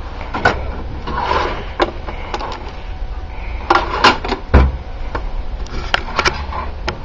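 Toolbox drawers being slid open and shut, with a run of clicks, clanks and knocks from the drawers and the tools in them, one heavier thump partway through, over a steady low hum.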